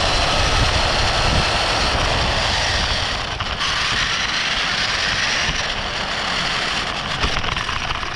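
RC car's motor and drivetrain whining as it drives, the pitch rising and falling with the throttle over a rumble of tyres on pavement; it eases off briefly about three seconds in, and near the end the tyres crackle over loose gravel.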